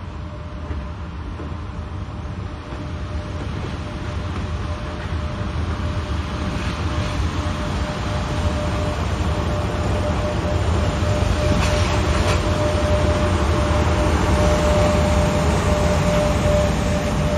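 Train running on rails and growing steadily louder, with a steady tone that strengthens toward the end and a few sharp clacks from the wheels near the middle.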